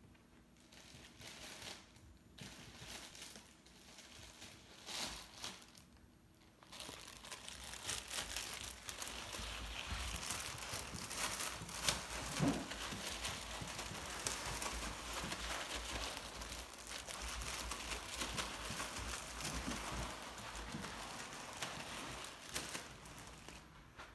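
Plastic food bag crinkling and crackling as a small dog rummages in it with its head. It starts about seven seconds in and keeps going, with a few louder crackles partway through.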